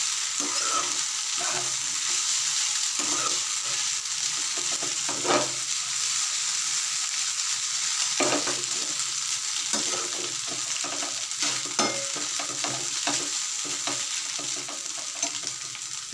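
Noodles and chopped vegetables sizzling in a frying pan while a steel slotted spoon stirs and scrapes through them in repeated strokes.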